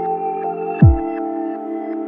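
Background ambient electronic music: sustained synth tones with one deep bass drum hit, falling sharply in pitch, a little under a second in.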